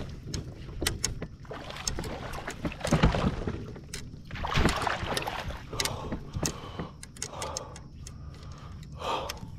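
Scattered clicks and knocks of fishing tackle against a plastic kayak, with short rushes of noise, while a hooked fish is fought on a bent rod and reeled toward the boat.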